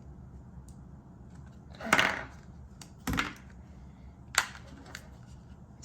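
A few sharp clacks and knocks of plastic Play-Doh toy pieces on a tabletop, about a second apart.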